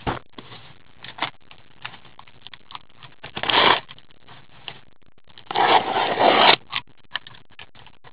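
Cardboard case handled and turned over: scattered knocks and taps, with a short scraping rush about three seconds in and a longer one around six seconds.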